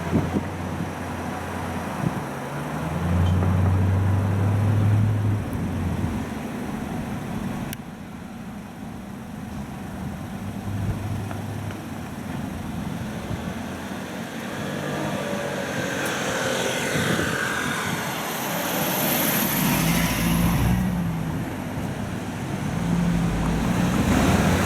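Road traffic moving through a street crossing. Vehicle engines hum low as they idle and pull away. A louder pass with a rising and falling whine and hiss comes about two-thirds of the way through.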